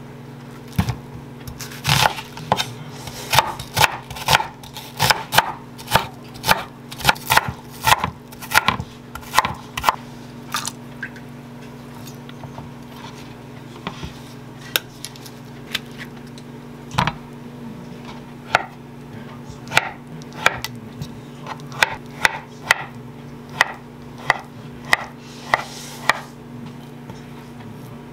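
Kitchen knife chopping on a wooden cutting board: a quick run of sharp knocks for about ten seconds while cutting an onion, a lull with a few stray taps, then another series of knocks near the end while slicing an avocado. A steady low hum runs underneath.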